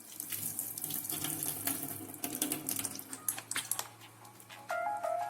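Water running from a tap and splashing as hands are washed under it. Near the end, a melody of music starts.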